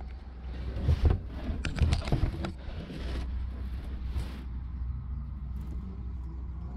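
Rustling and knocking from the trunk's carpeted floor board and trim being handled, heaviest in the first three seconds with one more rustle about four seconds in, over a steady low rumble.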